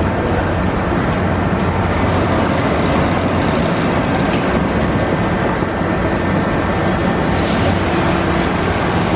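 Diesel engine and hydraulics of a long-reach demolition excavator running steadily under load, a dense low hum with a few faint knocks.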